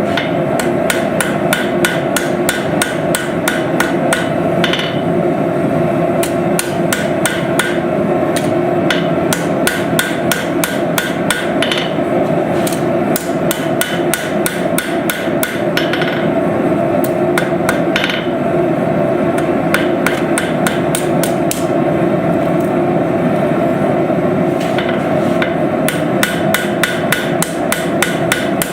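Hammer blows ringing on hot steel over an anvil while forging a knife blank, a long run of rapid, evenly paced strikes, over a steady hum.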